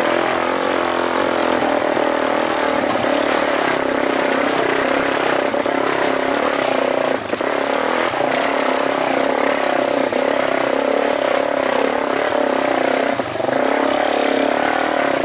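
Suzuki DR-Z400's single-cylinder four-stroke engine pulling the bike up a steep, rocky dirt climb. Its pitch wavers with the throttle, and it dips briefly twice, about halfway and again near the end.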